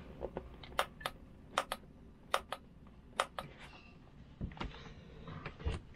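Kubota fuel shut-off solenoid from a Beta Marine 38 diesel, tested on its cables off the engine: its spring-loaded plunger clicks in and out in quick pairs, about four times, as the stop switch is pressed, showing the freed solenoid now works. A few dull knocks follow near the end.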